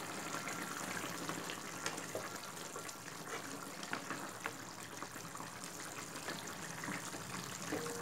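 Fish curry bubbling at the boil in an open pan, a steady watery sizzle with small pops, while a wooden spatula stirs it around the middle.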